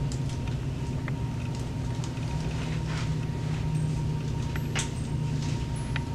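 Steady low mechanical hum with a thin constant high tone over it, and a few soft clicks, about a second in, near five seconds and near the end.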